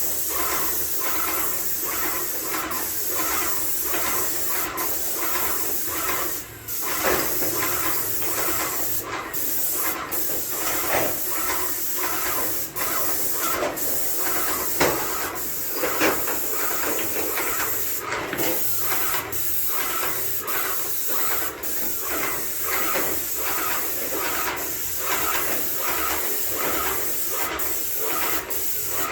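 Airless paint sprayer spraying: a steady hiss with a regular pulsing about twice a second.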